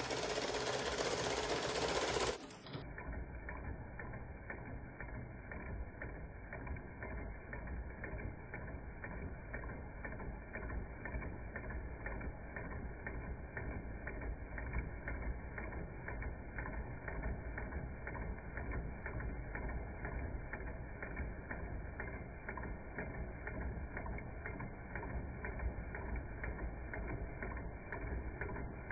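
Carette 105/5 tin toy steam engine running and driving a belt-driven toy sawing figure: a loud hiss with mechanical clatter for about two and a half seconds, then the sound turns slowed down and muffled, a steady run of rapid ticks and knocks from the engine and its belt-driven parts.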